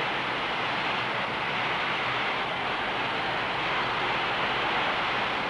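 Steady, even rushing noise on an old boxing-film soundtrack, with no single punch, bell or shout standing out.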